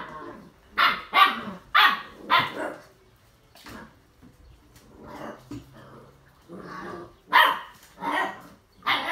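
Six-week-old Old English Sheepdog puppies barking at play: four short barks in quick succession in the first two and a half seconds, quieter sounds in the middle, then more short barks near the end.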